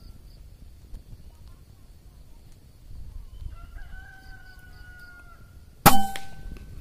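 A rooster crows once, a soft call lasting about two seconds. Then, near the end, a single sharp crack of an air rifle shot at a green pigeon, much louder than anything else, with a brief ring after it.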